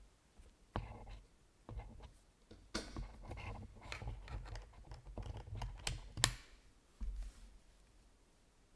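Typing on a gasket-mounted Veil 65 keyboard with an aluminium plate, WINGBlack switches and DCS keycaps. A few separate keystrokes come first, then a quick run of key presses ending in one sharp, louder click, and a low thud a little later before the typing stops.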